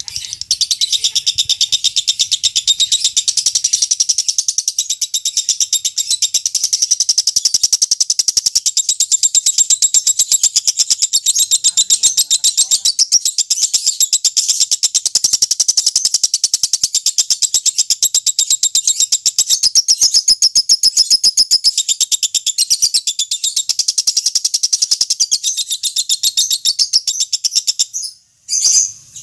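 Lovebird's long chattering trill (ngekek panjang): a fast, unbroken stream of high chirps that stops shortly before the end.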